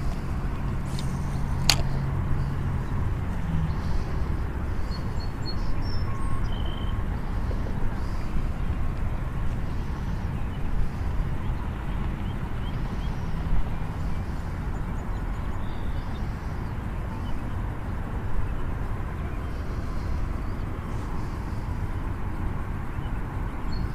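Steady low rumble of wind buffeting the microphone, with one brief click about two seconds in.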